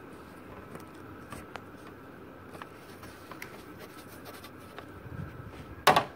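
Faint, irregular scratching of a signature being written on lined notebook paper, ending with one short, loud bump about six seconds in.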